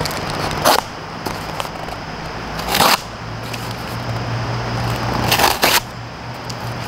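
A fixed-blade hunting knife slicing through double-thick corrugated cardboard in about four quick strokes, each a short, sharp rasp.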